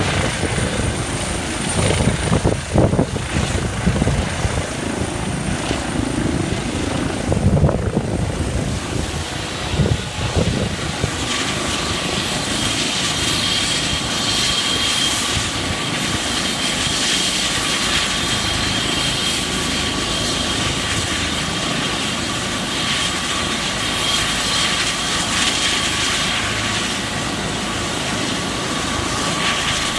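Airbus H135 helicopter hovering low and touching down, with gusty rumbling from the rotor downwash. After about ten seconds it settles into a steady turbine whine as the rotor keeps turning on the ground.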